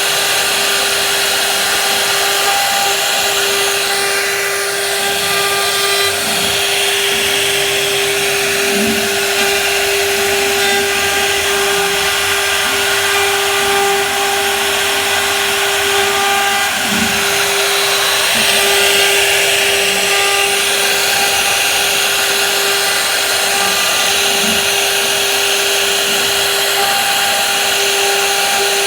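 Electric woodworking power tool running steadily, a constant motor whine over the hiss of cutting wood.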